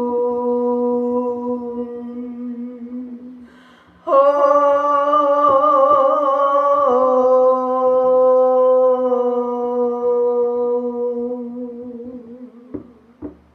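A voice humming long held tones in a healing chant: one steady note fades out, a breath is drawn, and a second wavering note starts about four seconds in, shifts pitch and slowly dies away.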